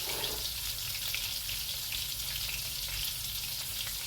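Chicken drumsticks sizzling steadily as they brown in hot canola oil in a pan, a fine crackling hiss at frying temperature.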